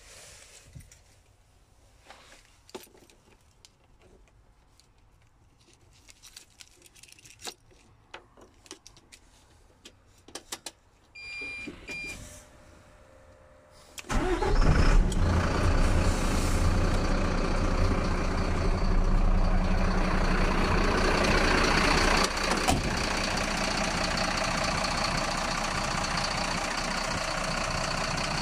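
Mercedes-Benz Atego 1224 truck's diesel engine starting about halfway through, after a short electronic tone, then idling steadily. Before the start there are only faint clicks in the cab.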